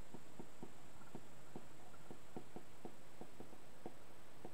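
Stylus tapping and sliding on a tablet screen while writing by hand: irregular light ticks, about four a second.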